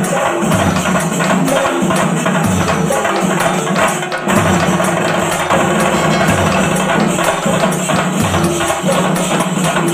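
Chenda melam: a large ensemble of chenda drums beaten with sticks, playing a loud, dense, driving rhythm.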